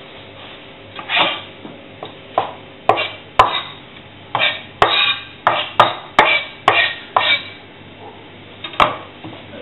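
Chef's knife chopping stuffing on a plastic cutting board: irregular sharp knocks of the blade on the board, coming faster in the middle, with a last knock near the end.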